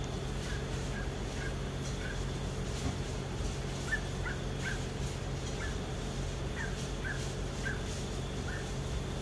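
Short, high animal calls repeating every second or so, often two or three in quick succession, over a steady low background hum.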